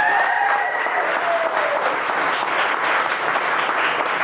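Audience applauding, a dense steady clatter of many hands. A single voice rises over the applause in the first two seconds.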